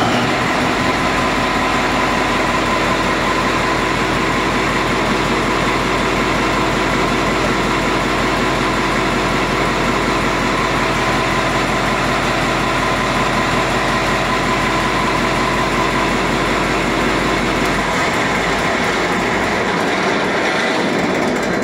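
Marine diesel main engine running loud and steady just after start-up. About eighteen seconds in, its deepest tones drop out and the sound begins to die away as the emergency stop shuts the engine down.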